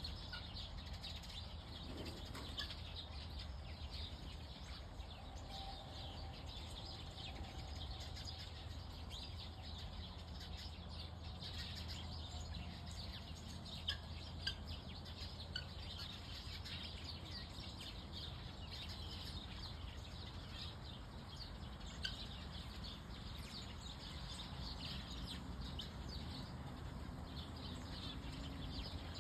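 Birdsong ambience: small birds chirping, many short high chirps throughout, over a faint steady low hum. A few sharp ticks come in the middle.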